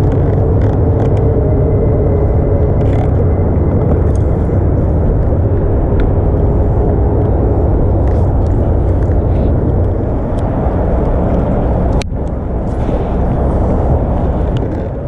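Boat's outboard motor running under way, a steady heavy low rumble. A sharp click about twelve seconds in, after which it runs slightly quieter.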